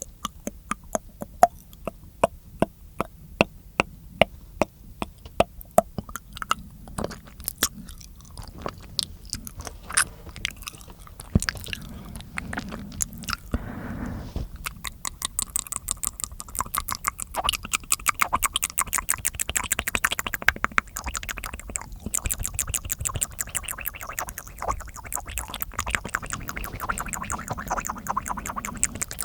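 Close-miked mouth sounds: a run of sharp tongue clicks, about three or four a second, giving way about halfway through to faster, wetter clicking and smacking.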